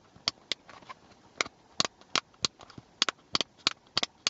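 A run of sharp plastic clicks, about a dozen at uneven spacing, from a round aftermarket seat-heater rocker switch being worked in its freshly reamed mounting hole.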